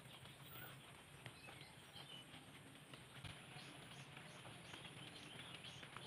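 Near silence: faint outdoor ambience with scattered soft ticks and a few faint, distant bird chirps.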